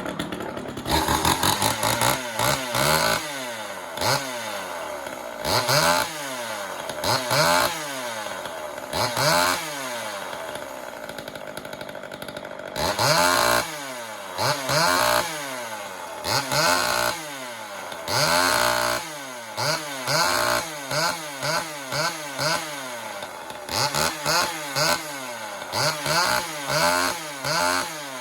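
Homelite XL76 two-stroke chainsaw running, its throttle blipped over and over so the engine revs up and falls back about once or twice a second in bursts, settling to a lower idle between them. It is running again after refusing to start, now cleaned up and revving freely.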